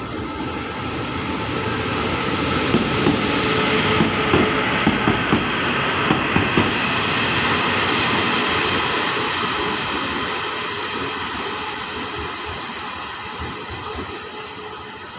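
Two Taiwan Railways electric locomotives, E1000-series push-pull power car E1011 coupled to E200-series locomotive E219, passing slowly at close range. Their running noise swells as they come alongside and fades as they move away, with a run of sharp wheel clacks from about three to seven seconds in.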